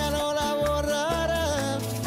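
Recorded pop song playing for a dance number: a wavering melody line over bass notes and a regular beat.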